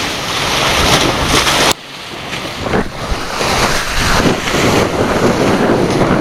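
Wind buffeting the microphone over the rush of water and spray along the hulls of a fast-sailing Tornado catamaran. The roar drops off suddenly about two seconds in, then builds back in uneven surges.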